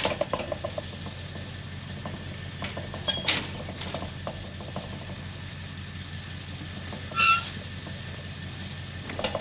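Steel livestock chute panels rattling and knocking as a ram pushes along the alley, with a louder short ringing clank about seven seconds in.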